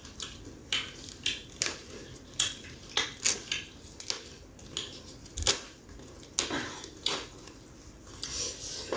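Crisp, irregular crackles and snaps of fresh young mango leaves being handled and plucked from their stems by hand, about two a second.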